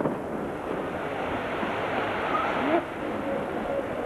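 Steady rushing noise of wind on the microphone over a distant crowd, between aerial firework shell bursts. It swells, then drops abruptly about three quarters of the way through.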